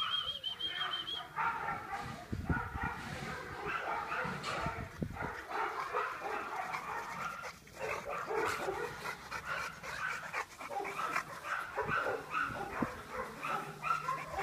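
Boxer dogs barking and yipping, a rapid, unbroken string of short barks.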